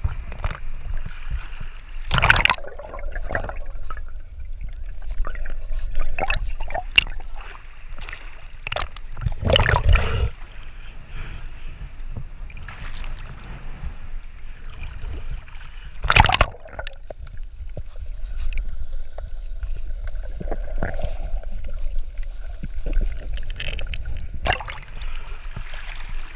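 Sea water sloshing and lapping against a camera held at the surface, with a steady low rumble and a handful of irregular louder splashes and gurgles as the water washes over it.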